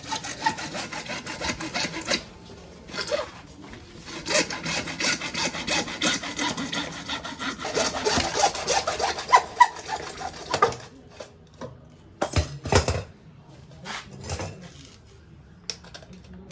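Hacksaw blade sawing through black HDPE water pipe in quick back-and-forth strokes. The sawing pauses briefly about two seconds in and stops about eleven seconds in, followed by a few knocks.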